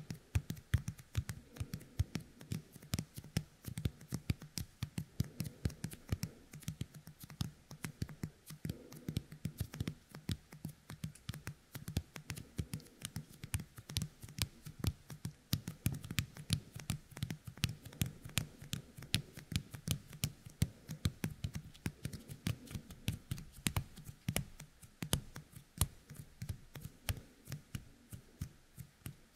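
Yōkai kemuri toy: fingertips coated with its tacky 'kusuri' glue pressed together and pulled apart right at the ear of a binaural dummy-head microphone, making a continuous stream of small sticky clicks and crackles, several a second.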